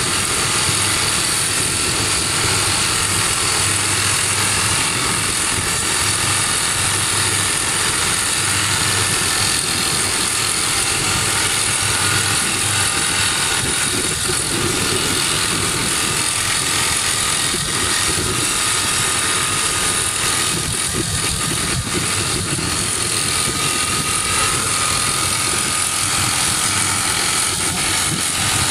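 SOOSAN STD14E top-hammer drill rig drilling rock, its TD45 hydraulic drifter hammering and turning the drill rod at the hole, with the rig's engine running. A loud, steady mechanical din.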